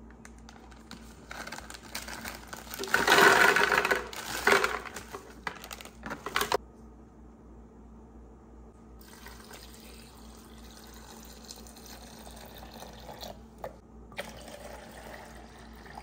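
A plastic candy bag crinkling and rustling loudly for a few seconds as gummy candies are tipped out of it. From about nine seconds in, juice pours steadily into an espresso machine's plastic water tank, stops briefly near the end, then a second pour begins.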